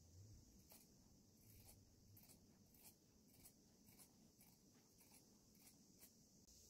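Dressmaking shears snipping through denim: faint, even cuts, about two a second.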